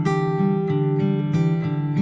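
Background music: strummed acoustic guitar playing sustained chords.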